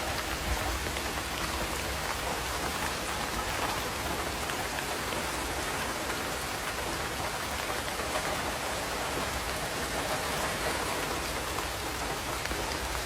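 Heavy pouring rain, a steady, even patter of drops that does not let up.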